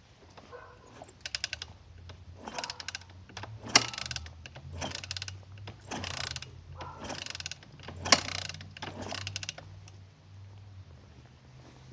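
Socket ratchet clicking in short strokes, about one stroke a second, with a sharper click twice, as a part is wound in by hand.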